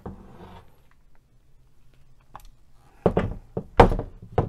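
Kar98AZ carbine's wooden stock and metal fittings knocking on a wooden tabletop as the rifle is turned over and set down: a faint click, then a quick cluster of sharp clunks in the last second and a half.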